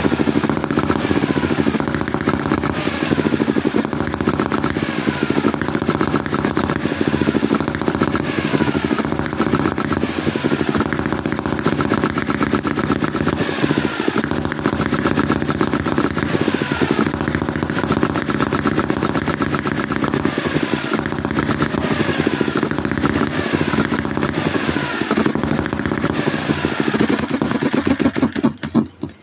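Microcosm H73 vertical hit-and-miss model engine running steadily with a rapid, even beat, firing on cycle after cycle instead of coasting through misses: its governor still needs adjusting.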